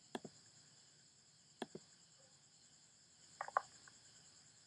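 Sharp computer-mouse clicks: a double click shortly after the start, another about a second and a half in, and a quick louder cluster about three and a half seconds in, as an audio file is chosen and inserted. Under them runs a faint, steady, high chirring of crickets.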